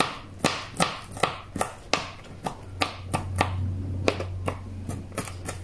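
Small kitchen knife chopping garlic on a cutting board: sharp knocks of the blade against the board, about two to three a second, as the cloves are minced fine.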